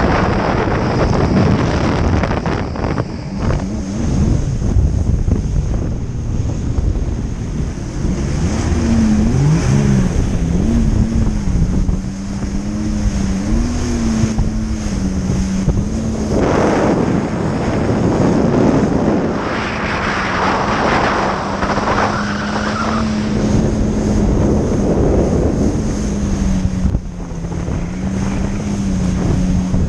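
Jet ski engine running under way, its pitch wavering up and down with the throttle, under heavy wind buffeting on the microphone. Several louder rushes of noise come about halfway through.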